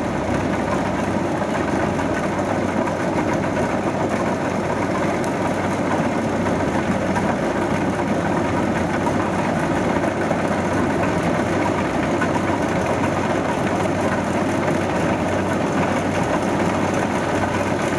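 Kubota DC70 rice combine harvester running steadily while it cuts ripe rice: a continuous engine drone mixed with the dense noise of its cutting and threshing machinery.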